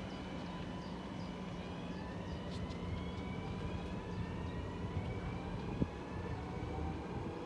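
NS VIRM double-deck electric train pulling away, its traction motors whining in several slowly rising tones as it speeds up, over a steady low hum. A short knock sounds near the end.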